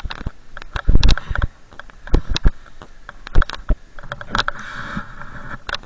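Riding down through deep snow among bushes, heard on the action camera's own microphone: irregular sharp knocks and thumps of the rider's gear and the camera mount, with snow and branches scraping by.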